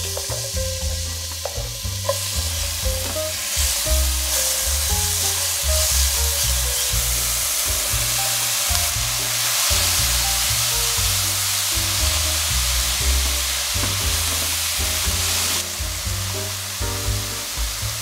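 Finely chopped red onion and aubergine flesh sizzling steadily as they fry in hot rapeseed oil in a stainless steel sauté pan, stirred with a spatula.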